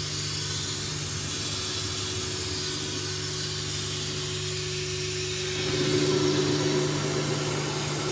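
Water running steadily from a hose into a car door during a leak test, heard as an even hiss over a steady mechanical hum that grows louder about six seconds in.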